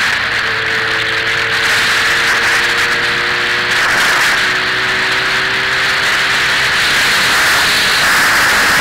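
Motorcycle engine running at a steady cruise, almost buried under loud, steady wind rush on an onboard microphone; its faint hum drifts a little in pitch with speed.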